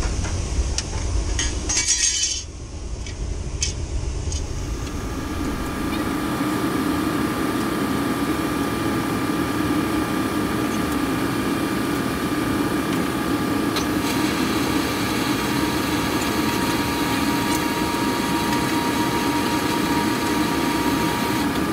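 A few light metal clinks and taps as a gloved hand works at a drive enclosure's top and conduit fittings. About four seconds in this gives way to a steady machinery hum with several high steady tones, broken only by the odd faint click.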